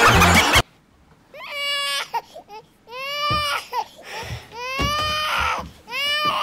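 Loud music cuts off about half a second in, followed by a baby crying in four separate high wails, each under a second long and holding a steady pitch.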